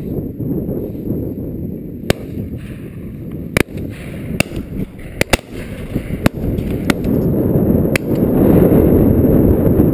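Shotgun shots from other guns on a pheasant drive, about eight sharp scattered reports, two in quick succession near the middle, over a steady wind rumble on the camera microphone.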